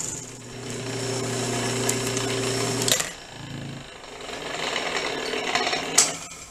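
Three-thread overlock (serger) sewing machine running with its shrill noise. It stops about three seconds in, starts again a second later, and there is a sharp click near the end.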